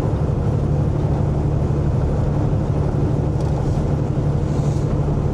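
Steady drone of a semi-truck's diesel engine and road noise heard inside the cab while driving.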